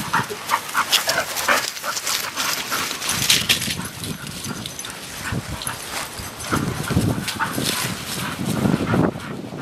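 A bull terrier and a pit bull-type dog playing chase, making short dog noises and scuffling sounds throughout. Two stretches of deeper rumbling come about two-thirds of the way through and near the end.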